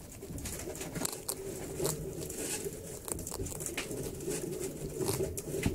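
Young prairie dogs chewing and crunching food they hold in their front paws: a run of quick, irregular crisp clicks.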